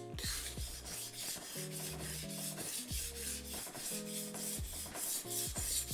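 Chef's knife blade pushed and pulled over a wet 1000-grit whetstone, a gritty scraping stroke after stroke: the second side of the edge being sharpened after a burr has formed on the first.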